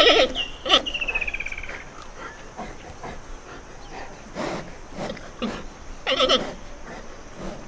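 Animal calls: a quick falling trill about half a second in, a few scattered clicks, and a short wavering call about six seconds in.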